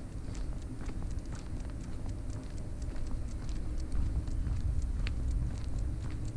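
Footsteps of a person and a leashed dog walking on a paved street: light, irregular clicks a few times a second over a steady low rumble.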